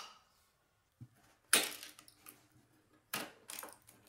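Wooden pieces knocking as they are handled: one sharp knock about a second and a half in, then two lighter ones near the end.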